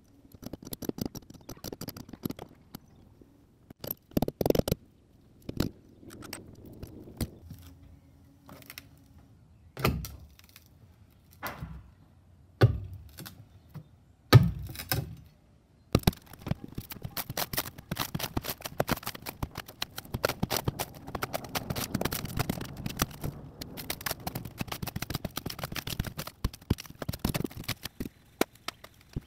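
Rotted marine plywood being pried and torn out of a boat's fiberglass transom: scattered knocks and thuds with some scraping, then from about halfway a dense run of cracking and crackling as the wet wood breaks away.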